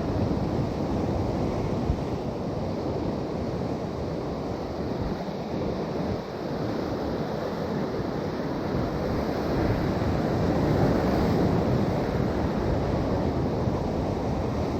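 Sea waves washing against a rocky shore, with wind buffeting the microphone; the wash swells a little louder about ten seconds in.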